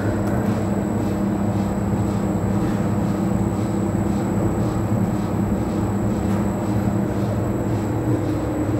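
5.0L Ford Coyote V8 with Borla stack injection running steadily on an engine dyno, a low, even engine sound with no change in speed.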